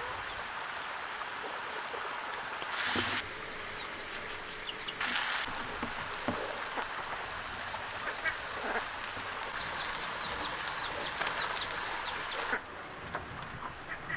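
Farm fowl calling, with a few bursts of hissing noise.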